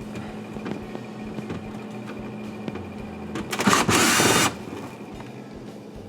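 Cordless drill with a Phillips bit whirring for about a second, a bit over halfway in, backing a screw out of a refrigerator's freezer evaporator cover. Light clicks and a steady low hum sit underneath.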